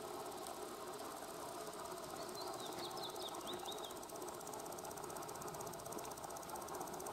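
A steady machine-like hum with a fine, rapid ticking, unchanging throughout, and a short, high warbling bird song about two to four seconds in.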